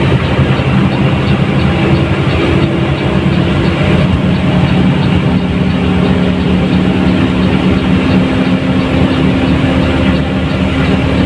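Front-mounted diesel engine of a Mercedes-Benz 1623 bus running steadily under way, with road noise, heard from inside the bus.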